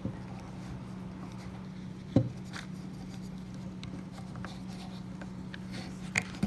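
Small scraping, rubbing and ticking as a metal bolt is turned by hand into the wooden coat rack part, with one sharp click about two seconds in and a couple of light knocks near the end. A steady low hum sits underneath.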